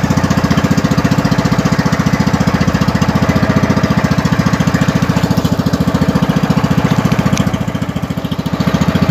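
The small engine of an outrigger fishing boat running steadily underway, with a fast, even putter. The sound eases briefly about eight seconds in.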